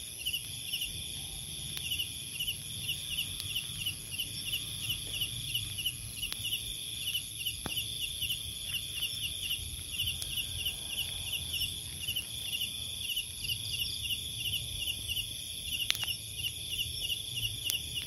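Night insects chirping: a cricket repeating quick paired chirps over a steady high insect whine. A few scattered sharp clicks and a low rumble sit underneath.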